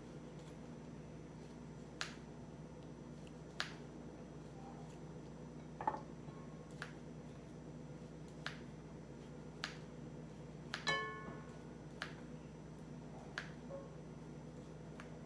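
Kitchen scissors snipping pieces of food into a pot, about nine sharp snips at an uneven pace a second or two apart, one near 11 seconds followed by a brief metallic ring. A low steady hum sits underneath.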